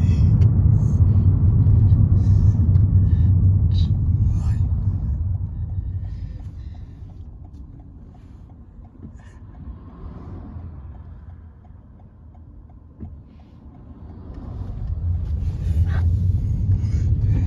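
Taxi cabin rumble from the engine and road. It is strong at first, fades to a low level for several seconds in the middle, with a faint regular ticking, then builds again near the end as the car drives on.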